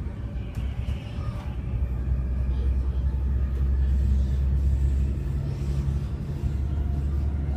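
Moving passenger train heard from inside the carriage: a steady low rumble of wheels on the rails, growing somewhat louder after the first second, with a steady hum joining in the middle.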